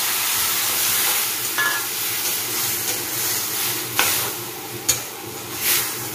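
Papaya and poppy-seed paste sizzling in hot oil in a steel kadai as it is stirred with a metal spatula. The sizzle is steady, with a few sharp clinks of the spatula on the pan about four and five seconds in.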